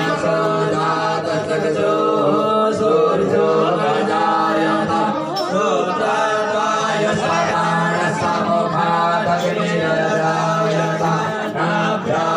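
Hindu devotional chanting: voices singing a continuous chant in slow, held notes over a steady low drone.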